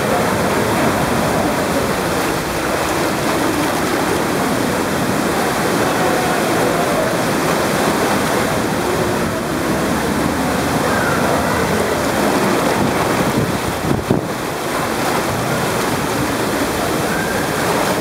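Fast white water rushing and splashing down a wild-water river ride channel, heard close to the surface, steady and loud throughout, with a brief thump late on.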